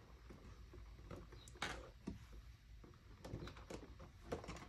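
Faint handling sounds of craft markers being picked through to take out a red marker: a few light clicks and knocks, the sharpest about a third of the way in, over quiet room tone.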